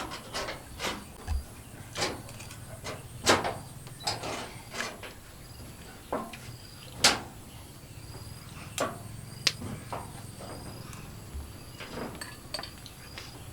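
Irregular light knocks and clicks, about one a second, two of them louder, about three and seven seconds in, over a faint steady high tone.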